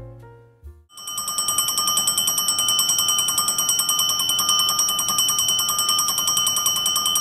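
The last notes of background piano music, then, about a second in, an electric railway-station platform bell starts ringing continuously with rapid strikes. It is the station bell that signals an approaching train.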